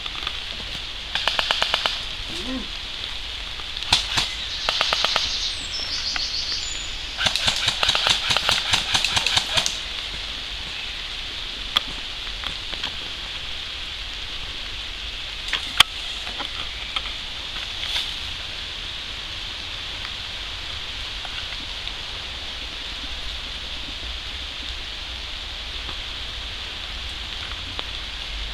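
Airsoft gun firing three rapid full-auto bursts in the first ten seconds, the last one the longest, followed by a few single sharp cracks.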